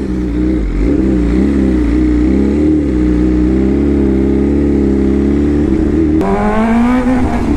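Superbike engine running loud through an Arrow full-system exhaust, its pitch rising and falling with the throttle; a little after six seconds the revs climb and the note turns brighter.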